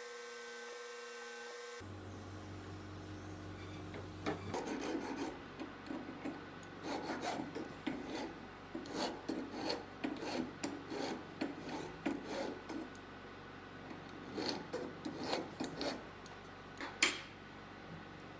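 Metal file rasping on a small sterling silver piece in short irregular strokes, starting about four seconds in and stopping near the end. A single sharp click follows.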